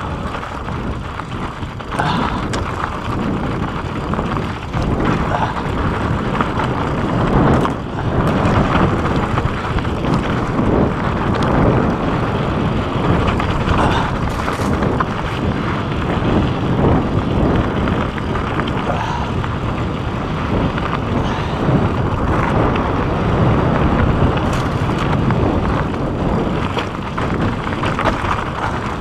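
Mountain bike descending fast over rocky dirt singletrack: wind rushing over the microphone and tyres rolling on loose dirt and rock, with frequent rattles and knocks as the bike hits rocks.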